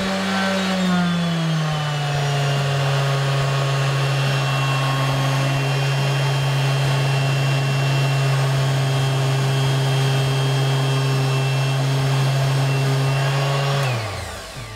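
Parkside PEXS 270 C3 270 W random orbital sander running with no load, a steady motor whine. Its pitch drops between one and two seconds in as the speed is turned down from maximum toward minimum, and it runs steadily at the lower speed until it is switched off near the end and winds down to a stop.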